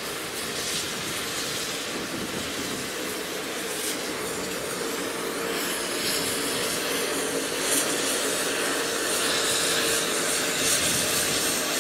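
Beyer-Garratt steam locomotive 6029 moving slowly at low speed. It makes a steady hiss of steam and running noise that grows louder as it draws closer.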